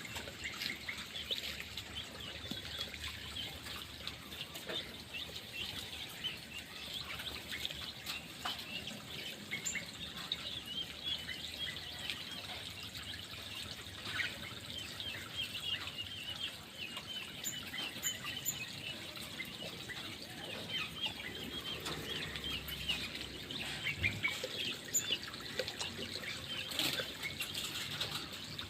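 Aviary birds chirping and twittering continuously, many short overlapping calls with a few higher notes.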